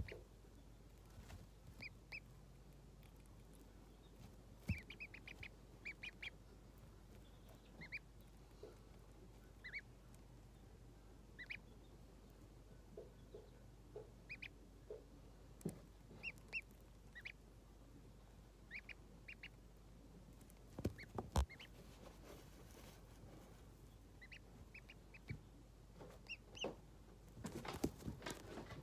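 Ducklings peeping softly now and then, short high peeps often in quick runs of two to four. A couple of sharp knocks, one about five seconds in and a louder one about twenty-one seconds in, and some rustling on the bedding near the end.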